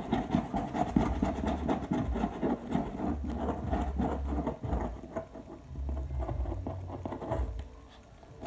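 Scratching on a box: a fast, dense run of rasping scratch strokes that thins out and fades near the end.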